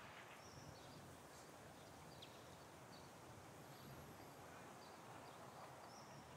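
Near silence with scattered short, high bird chirps.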